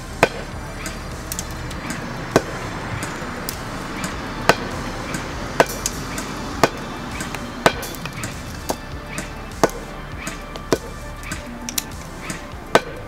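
Tokyo Marui MP5SD6 airsoft electric gun firing single shots: a sharp crack about once a second, with fainter clicks in between.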